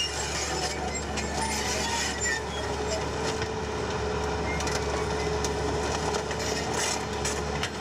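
Demolition of a wooden building: a heavy machine's engine runs steadily while timber and debris crack, splinter and crunch in many sharp snaps.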